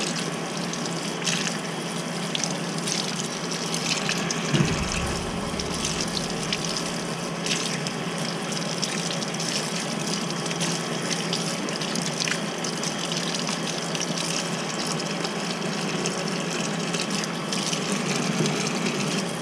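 Tap water running steadily from a faucet into a stainless steel sink, splashing over fish being rinsed and into a plastic colander. There is one dull bump about four and a half seconds in.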